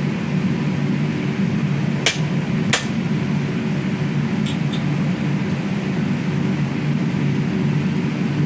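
A fan or blower running with a steady low hum, with two sharp clicks about two seconds in, under a second apart, and two fainter ticks a little later.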